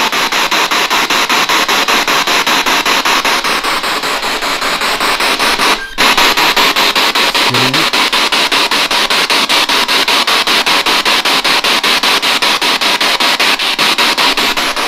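Radio static from a spirit box sweeping through stations, chopped into a rapid even pulse of about eight clicks a second. It cuts out for a moment about six seconds in.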